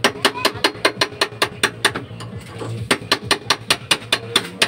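Quick, regular metal-on-metal hammer taps, about five a second, on a steel rod set against the steering pivot pin of a Bajaj RE three-wheeler, pausing briefly about two seconds in.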